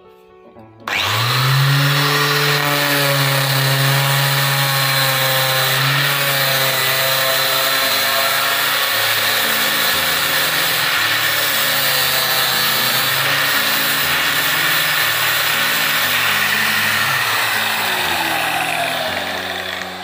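Electric angle grinder fitted with a sanding disc switched on about a second in, spinning up to speed and running with a steady high whine, then winding down near the end.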